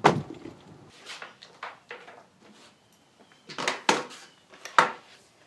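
A series of sharp knocks and thumps, the loudest right at the start and a cluster a little before the end, as computer gear is handled and set down on a wooden workbench.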